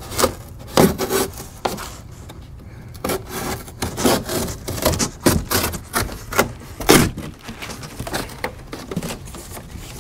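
Corrugated cardboard box being cut open with a box cutter: a run of short, irregular cutting strokes, the strongest about a second in and again about seven seconds in.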